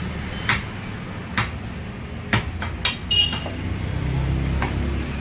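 A butcher's cleaver chopping mutton into chops: several sharp chops at irregular intervals, one followed by a brief metallic ring, over a steady low rumble.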